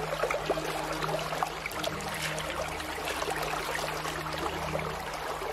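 Flowing river water running steadily, with scattered light clicks over it and a steady low hum underneath.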